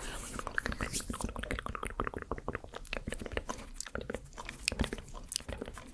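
ASMR mouth sounds close to the microphone: a fast, irregular run of short wet clicks and smacks.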